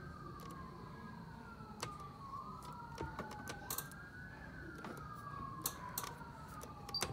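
Two emergency-vehicle sirens wailing faintly and overlapping, each rising quickly in pitch and then sliding slowly back down over several seconds, with a few light clicks.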